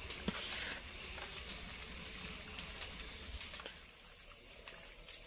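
Faint outdoor night ambience with a sharp click about a third of a second in, a short rustle after it, and a few small soft clicks later on.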